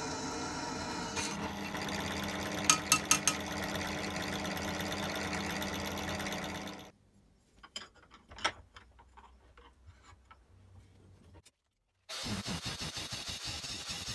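Bench drill press motor running steadily while drilling holes in an aluminium strip, with a quick run of four sharp ticks about three seconds in. The machine then stops, leaving light handling clicks. Near the end a Makita angle grinder starts cutting an aluminium bar held in a vise, with a harsh grinding hiss.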